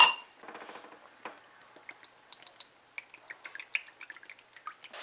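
A spoon clinks once against a glass mixing bowl with a short bright ring. Then come faint, scattered drips and ticks of cooking oil being poured into a nonstick frying pan.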